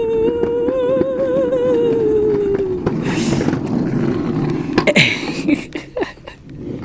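A young child's voice holds one long, wavering hum that slowly falls and stops about three seconds in. Under it is a steady rumble of small plastic ride-on car wheels rolling on concrete, which fades a couple of seconds later; a short hiss and a few clicks are heard in between.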